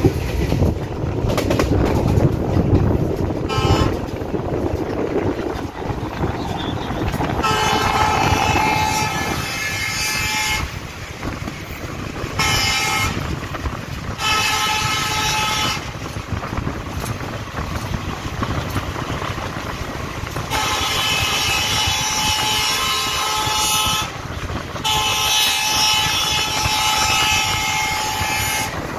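Rumble and clatter of a moving train heard from its open window while another train of parcel vans passes on the next track. A multi-tone train horn sounds about six times: short toots and several long blasts of two to three and a half seconds, the last two near the end.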